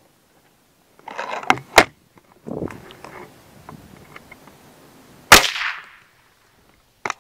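Ruger Air Hawk break-barrel spring-piston air rifle being cocked and handled, with two sharp clicks about a second in, then fired once about five seconds in with a loud, sharp crack and a short ringing tail. The shot is dieseling: the pellet skirt was filled with CLP oil, which ignites under the piston's compression.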